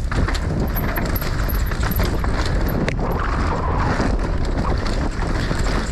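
Mountain bike rolling fast down a dirt trail: tyres running over dirt and loose stones, with sharp knocks and rattles from the bike over bumps, and wind rumbling on the microphone.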